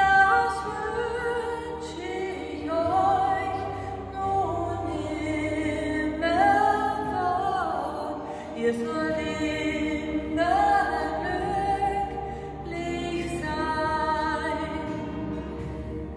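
A woman singing solo, holding long notes in a melody that steps up and down, in a stone church.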